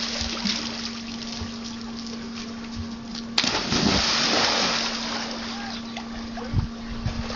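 A person jumping into a swimming pool: a sudden loud splash a little over three seconds in, followed by about a second and a half of churning water.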